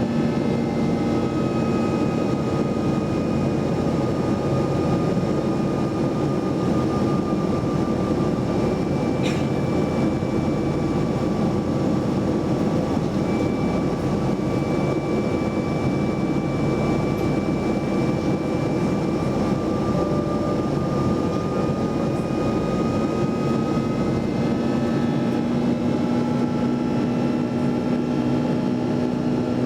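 Boeing 757-200 jet engines heard from inside the passenger cabin: a steady rush of engine and air noise with a fan whine that sags slightly in pitch and comes back up. A brief click about nine seconds in.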